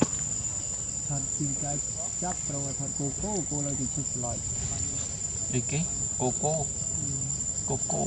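Insects, cicadas or crickets, droning on one steady high-pitched tone, with low voices talking underneath.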